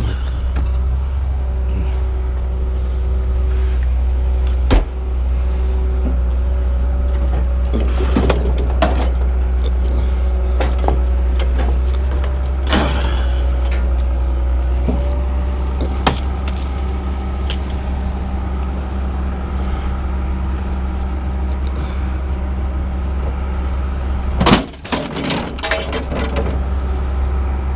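An engine running steadily with a low rumble while scrap metal is unloaded: scattered clanks and knocks of metal pieces, and a loud metallic bang near the end.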